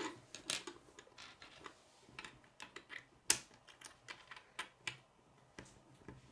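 Small plastic K'nex pieces clicking and snapping as a rod is pushed into a connector: a run of irregular short clicks, the sharpest about three seconds in.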